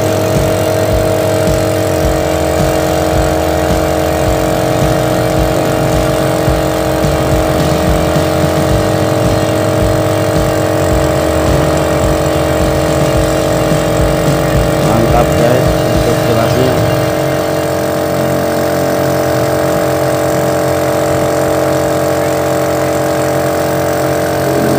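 A motor running steadily at idle, a constant hum with a low throb that eases about two-thirds of the way through.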